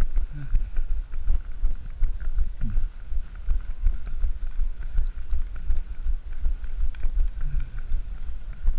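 A runner's footfalls jolting the body-worn action camera, giving heavy low thuds in a steady running rhythm, with wind buffeting the microphone.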